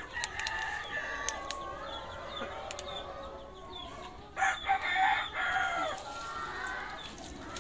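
A rooster crows about four seconds in, a pitched call lasting a second or so, with chickens clucking around it.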